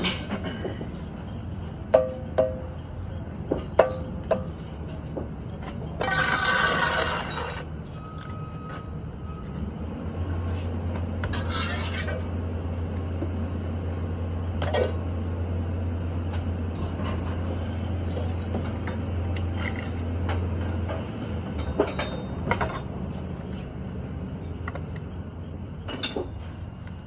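Bricklaying tool sounds: a steel trowel and spirit level clinking and knocking against brick, with a few sharp ringing clinks two to four seconds in and some scraping. A steady low machine hum runs through the middle stretch.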